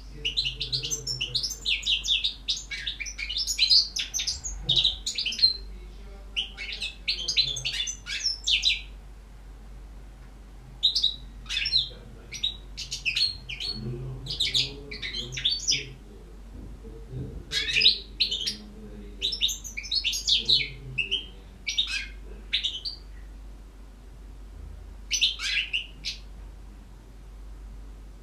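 European goldfinch singing: bursts of fast, high, twittering and trilling phrases broken by short pauses, with a last brief phrase about three-quarters of the way through. A faint low hum runs underneath.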